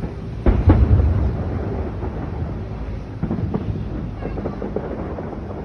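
Fireworks exploding: a loud, deep boom about half a second in that rumbles away over the next second, then a few lighter bangs and a quick run of pops.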